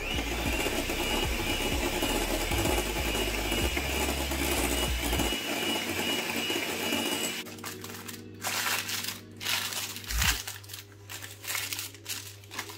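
Electric hand mixer running steadily with a thin high motor whine, its beaters whisking cream in a glass bowl; it stops about seven seconds in. Then irregular crinkling of baking parchment being handled.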